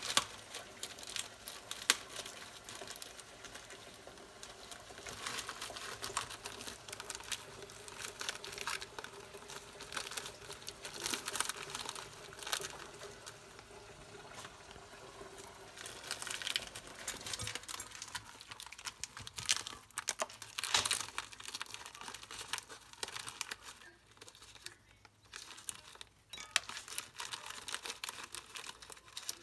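Umbrella cockatoo digging through a bowl of plastic snack-bar wrappers with its beak, crinkling and rustling them in irregular bursts.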